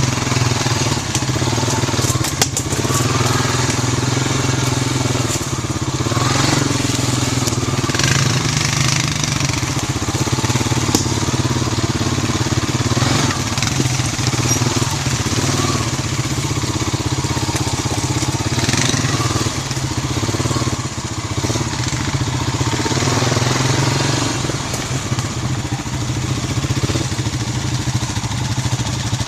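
Quad (ATV) engine running steadily at low speed on a trail ride, with occasional sharp snaps and scrapes.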